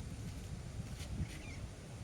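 Quiet outdoor ambience: a low, uneven wind rumble on the microphone, with one faint short bird chirp a little past a second in.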